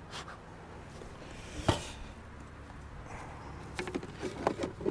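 Wooden beehive parts being handled as the hive is opened: one sharp wooden knock about a second and a half in, then a quick run of clicks and knocks near the end, over a faint steady hum.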